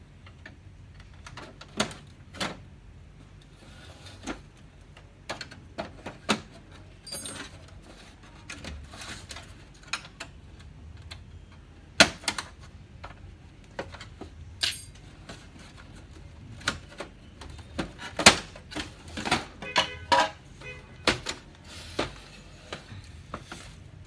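Irregular plastic clicks, snaps and knocks as the HP Laser MFP 135a printer's casing panels are pried and unclipped with a tool, with several louder snaps in the second half.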